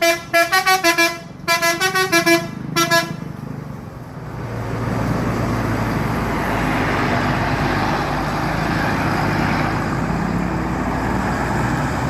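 Bus 'telolet' musical horn playing a quick tune of short toots on changing pitches, in two runs and a last single toot over the first three seconds. Then the bus engine runs with a steady rush and low hum.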